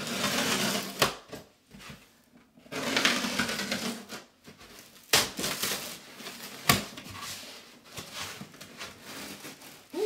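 Packing foam and wrapping being pulled and cut: scraping, rustling stretches at the start and about three seconds in, with sharp cracks and clicks scattered through.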